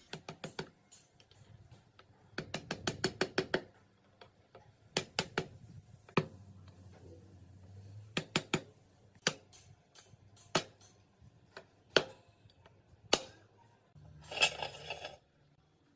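Sharp clicks and taps from hands-on work on the fan's parts. There is a quick run of about eight clicks two to four seconds in, then single knocks about a second apart, and a short, denser rattle near the end.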